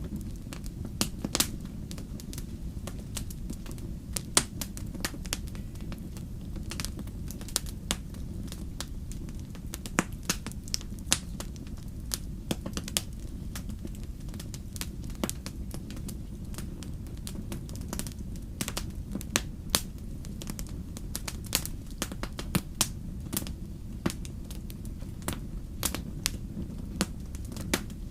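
Wood fire burning: irregular sharp pops and snaps, several a second at times, over a steady low rumble.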